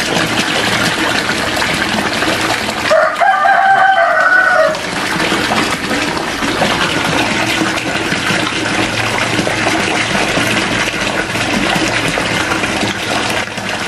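Steady rush of water running into a tarpaulin koi pond. A rooster crows once about three seconds in, the crow lasting nearly two seconds.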